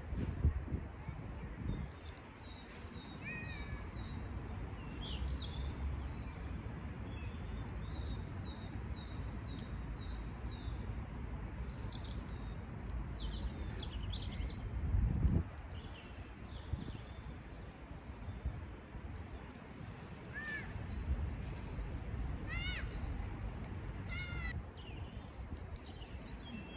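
Wild birds calling and chirping intermittently, with a series of repeated arching notes near the end, over a steady low outdoor rumble. A louder low bump comes about halfway through.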